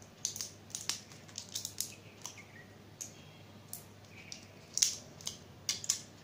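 Crinkling and clicking of a small plastic medicine packet being worked open by hand, in irregular snaps with a louder cluster near the end.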